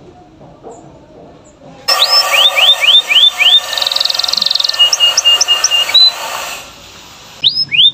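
Canary singing: after a quiet start, a loud run of repeated upswept whistled notes, then a rapid rolling trill and quick high chips. It stops briefly, and more swooping notes start near the end.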